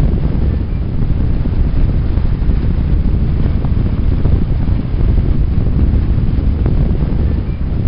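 Blue gas flame jet burning with a steady, low rushing rumble that holds even throughout.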